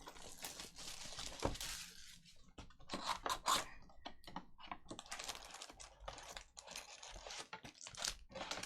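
Trading-card packs and cards being handled: foil pack wrappers tearing and crinkling, with quick runs of small rustles and clicks.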